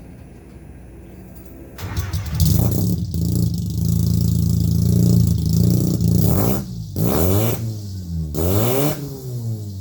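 A 1959 Austin-Healey Sprite's rotary engine starts about two seconds in and runs loud through its old exhaust, which the owner calls too loud, then is revved several times, the pitch rising and falling with each blip.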